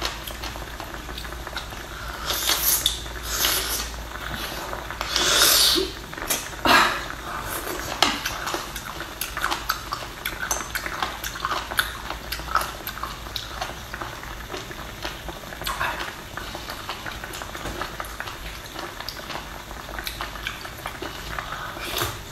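Wet squelching and smacking of a raw sea cucumber being squeezed and handled by hand, with a few louder wet bursts in the first eight seconds. Biting into it near the end.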